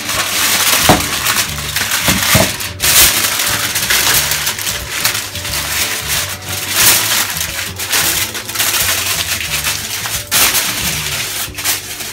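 Aluminium foil crinkling and crackling continuously as it is wrapped over a baking dish and crimped down around the rim to seal it.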